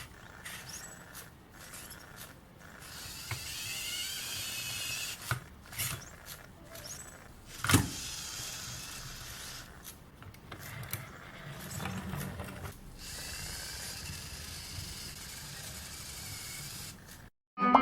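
Small toy robot's gear motors whirring and clicking as it moves, with wavering electronic chirps about three seconds in and a sharp plastic knock near the middle.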